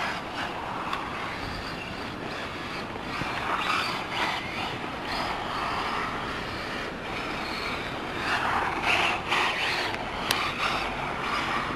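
Tamiya TT-01 electric RC car's motor and drivetrain whirring as it drives on asphalt, swelling with bursts of throttle around four seconds in and again around nine seconds. A short sharp click about ten seconds in.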